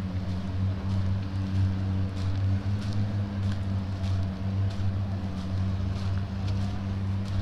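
Boat engine running steadily, a low even hum that holds its pitch throughout.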